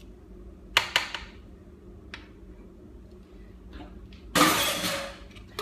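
Two sharp clinks of a metal spoon knocking minced garlic off into the pan, then about four seconds in a louder, harsher clatter that lasts about a second and fades.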